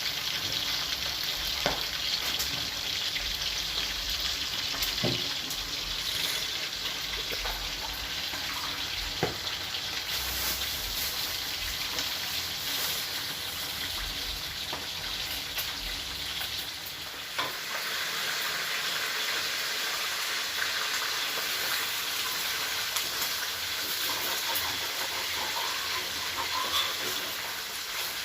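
Food frying in hot oil, a steady sizzle, with a few light knocks of a utensil in the first several seconds.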